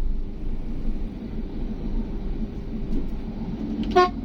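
Steady low rumble of a moving road vehicle, heard while travelling, with a brief single beep about four seconds in.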